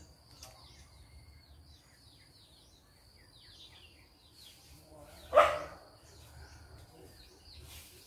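A dog barks once, loudly, about five seconds in. Under it are short, high falling bird chirps and a steady high-pitched tone.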